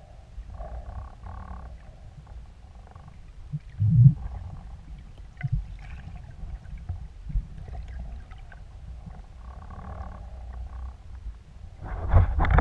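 Underwater sound picked up by a camera housing on a speargun: a steady, muffled low rumble of water moving past as the diver swims. There is a loud thump about four seconds in, a few smaller knocks, and another loud burst of knocking near the end.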